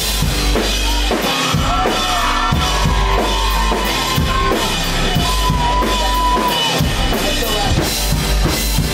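Loud live concert music: a drum-kit beat with kick and snare over a deep bass, with a high wavering melody line on top.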